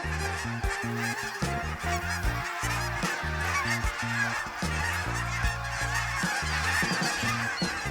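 A large flock of geese calling, a constant din of overlapping honks, over a music track with a low stepped bass line.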